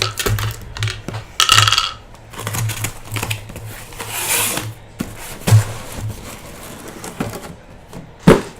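Cardboard case and trading-card hobby boxes being opened and handled: irregular knocks, scrapes and rustling rips, with a sharp knock near the end.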